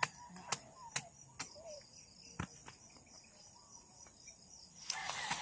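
Bolo knife chopping cassava roots off the stem: a series of sharp chops, several in the first two and a half seconds and fainter ones after. A steady high insect trill goes on underneath, and a burst of rustling noise comes near the end.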